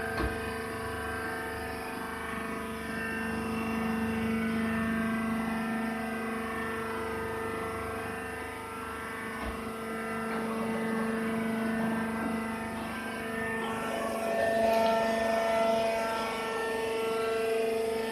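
Hydraulic cottonseed hull baling press running, a steady machine hum of its motor and pump with several fixed tones. About three-quarters of the way through, the tone shifts and gets a little louder.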